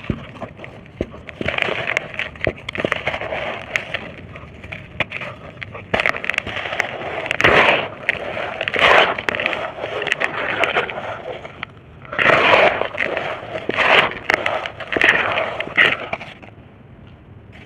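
Dry red brick and dirt shapes being crushed and crumbled: gritty crunching full of small crackles, with a run of louder crunches every second or two from about six seconds in, easing off near the end.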